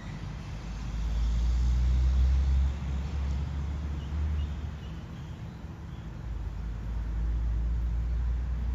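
Low engine rumble of passing road traffic, swelling about a second in, easing off, then building again near the end.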